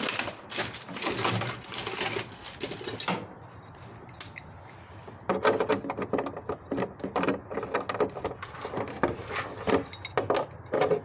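Irregular clicking, knocking and rattling of plastic and metal parts being handled in a car's engine bay, with a quieter pause of a couple of seconds before the clatter picks up again.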